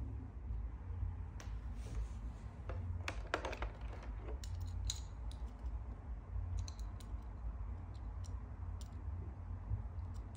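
Scattered small clicks and taps of Hot Wheels die-cast toy cars and their plastic display tray being handled, with a quick run of clicks about three seconds in, over a steady low hum.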